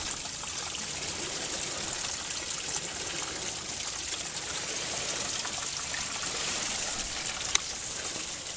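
Spring water trickling steadily out of a crevice in a rock face and running down over moss.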